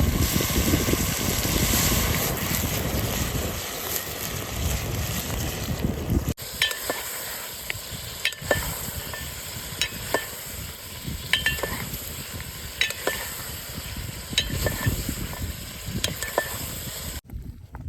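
Food sizzling in a metal pan over the fire, then, after a cut about six seconds in, a metal spoon stirring and scraping the pan in irregular strokes with short metallic clinks.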